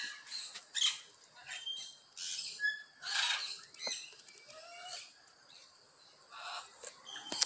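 Birds calling: a string of short chirps, brief whistles and harsh squawks, some sliding up or down in pitch, with a near-quiet stretch about five to six seconds in.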